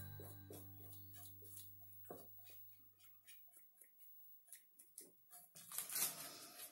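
Background music fading out, then faint light clicks and taps from hands handling the decoupaged wooden drawer, with a brief scraping rustle near the end.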